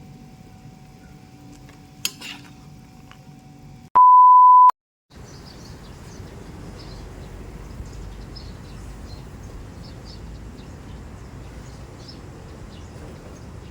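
A loud single electronic beep about four seconds in: one pure, steady tone lasting under a second. Before and after it there is steady low background noise, with a brief clatter about two seconds in.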